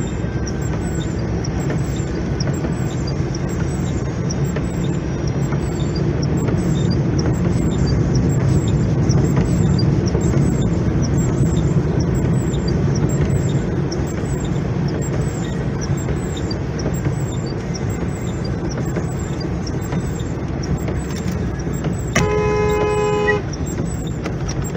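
Steady road and engine noise heard inside a moving car's cabin, with tyre hiss from the wet road. Near the end a car horn sounds once for just over a second, two notes together.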